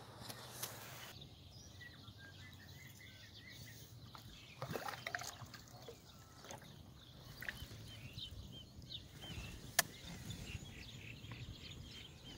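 Quiet canoe-on-the-lake ambience: runs of faint bird chirps, a paddle splash about halfway through, and one sharp knock a little before the end.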